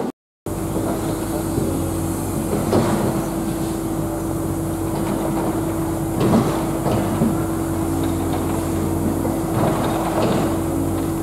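Street ambience outside a railway station entrance: a steady hum with a few brief knocks, after a half-second dropout at the start.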